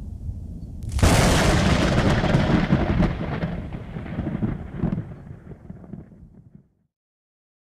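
Thunder: a low rumble builds, then a sharp crack about a second in opens into a loud rumble that slowly fades away.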